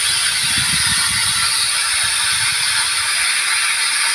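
Spatula stirring and scraping fried potato pieces and spice paste around a metal pan while frying the masala down. A quick, irregular run of scrapes stops about three seconds in, over a steady hiss.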